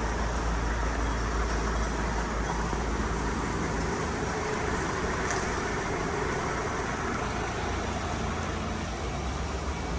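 Steady vehicle and road noise with a deep low rumble.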